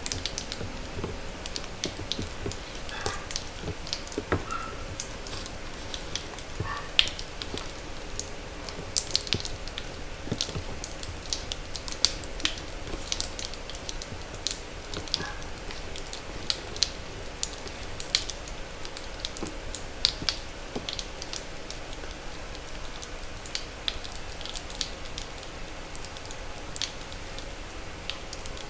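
Reformed gym chalk of pure magnesium carbonate, set with only water, being crushed, giving many irregular sharp pops and crackles.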